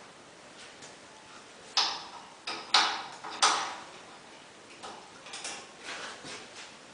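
Sharp metal clanks and clicks from a welded steel table saw stand being handled: three loud knocks close together about two seconds in, then fainter clicks near the end.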